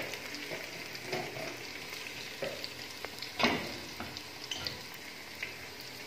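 Chopped onions and whole cumin seeds sizzling in hot oil in a steel pot, a steady hiss with small crackles. A single sharp knock about three and a half seconds in.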